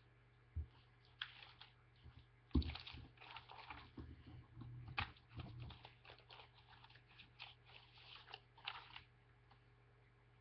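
Sheets of paper rustling and crinkling as they are handled, in irregular bursts with a few soft knocks.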